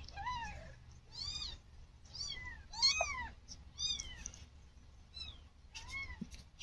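Newborn kitten mewing: about seven short, high-pitched cries, each rising and then falling in pitch.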